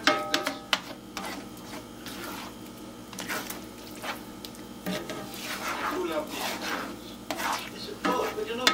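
Spatula scraping and stirring scrambled eggs around a cast iron skillet, in irregular strokes with knocks and clinks against the pan, loudest right at the start and again near the end.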